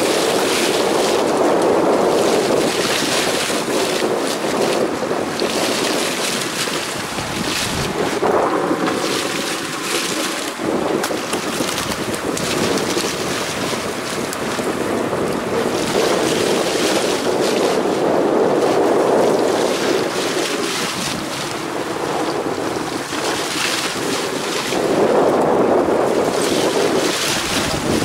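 Wind buffeting the microphone over the sea around a small open fishing boat: a steady rushing that swells and eases every few seconds.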